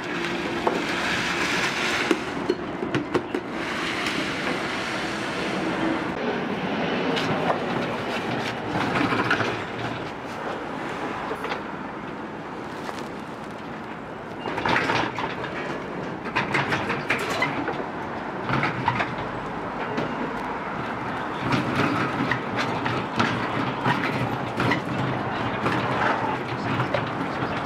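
Food-stall kitchen clatter: metal cooking utensils knocking and clacking irregularly over a steady noisy background.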